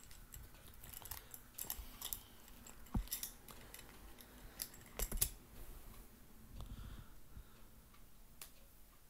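Faint, irregular clicking and tapping of a computer keyboard, with a couple of louder knocks about three and five seconds in.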